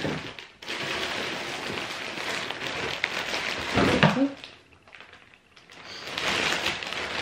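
Plastic bag rustling and crinkling as it is pulled out of a cardboard box, with the box being handled; a louder knock about four seconds in.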